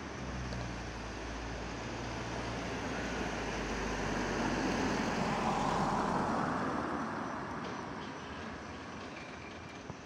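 A road vehicle passing by: a rushing noise with a low engine hum that swells to its loudest about halfway through and then fades away.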